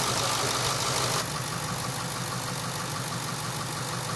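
Ford 7.3-liter Power Stroke V8 diesel idling steadily, turning the Mean Green alternator through its drive belt. The sound steps down a little in level about a second in.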